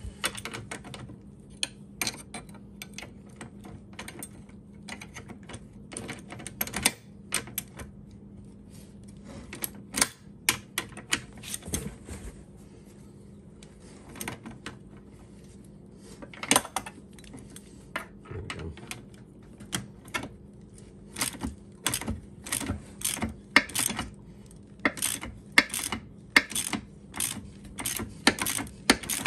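Hand tools working a suspension link nut: a ratchet clicking in quick runs and steel wrenches clinking against the fitting. The clicks come in uneven bursts at first and more steadily in the last several seconds.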